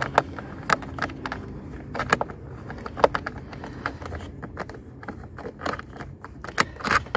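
Hand work at a car's heater blower motor and its wiring under the dashboard: irregular clicks, taps and light scrapes of plastic parts and a tool being handled.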